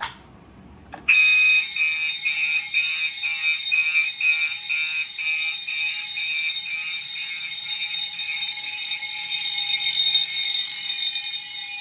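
Fire alarm pull station pulled with a click about a second in, setting off a test fire alarm system: several horns and signals sound together at once, a loud mix of steady tones with a fast repeating pulse running through it.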